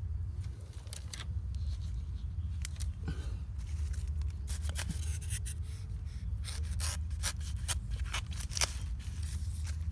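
Dry bamboo leaf litter and thin stalks crackling and rustling as they are pushed through and stepped on, in scattered sharp crackles that come thicker from about halfway, over a steady low rumble.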